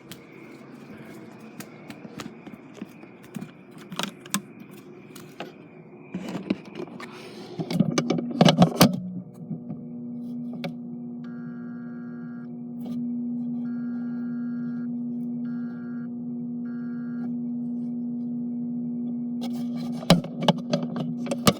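Knocking and rustling of handling at first. Then a sprinkler timer's 24 V transformer hums steadily, and a ripple-control telegram comes through it as four short buzzing pulses about halfway, the audible sign of the mains ripple signal passing through the transformer. A few clicks of handling come again at the end.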